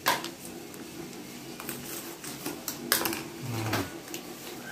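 Kitchen handling noise: a sharp knock right at the start and another about three seconds in, with light ticks and rustles between.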